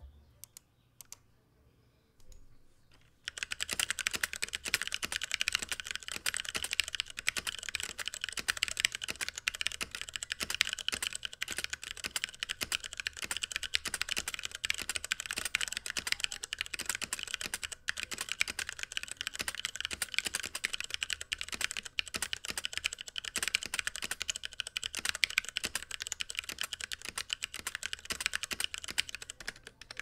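Typing on a DZ60 60% mechanical keyboard with Cherry MX Brown switches and Zeal stabilizers in an acrylic case: a dense, continuous clatter of keystrokes that starts about three seconds in. The builder judges the sound "not good".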